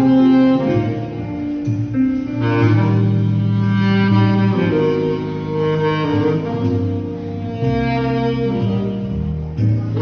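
Selmer R54 tenor saxophone with a Vandoren TL4 mouthpiece playing long, held melody notes over an accompaniment of bass and strings.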